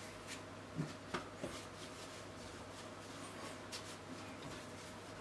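Faint rubbing of hands rolling a piece of sticky quark dough on a kitchen worktop, with a few light knocks in the first second and a half. A low steady hum runs underneath.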